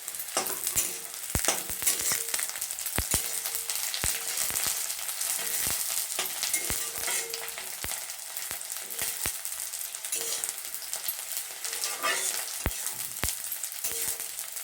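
Sliced onions and green chillies sizzling and crackling in hot mustard oil in a kadhai while being stirred, with frequent sharp knocks and scrapes of the stirring utensil against the pan.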